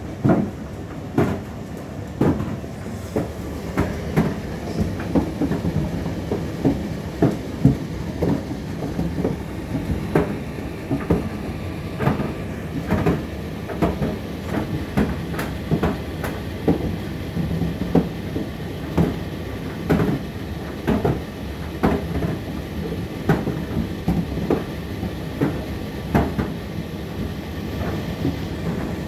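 Indesit IDC8T3B condenser tumble dryer running mid-cycle: a steady hum from the motor and drum, with irregular knocks about once or twice a second as the laundry drops and tumbles in the turning drum.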